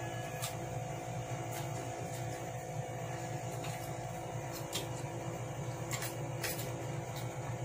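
Steady low mechanical hum, with a few faint scattered clicks of chewing and a fork against the plate while eating noodles.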